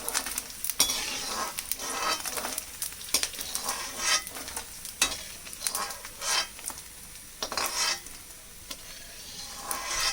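Gond (edible gum) sizzling in hot ghee in a kadhai, with a spoon scraping against the pan again and again at irregular intervals as the puffed pieces are stirred and lifted out.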